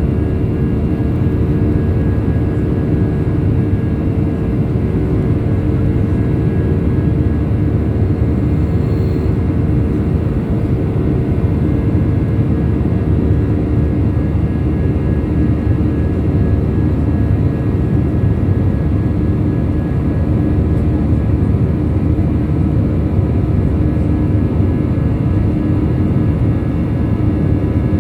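Airbus A319 cabin noise: its jet engines and airflow making a steady, loud rush with a constant low hum, unchanging throughout.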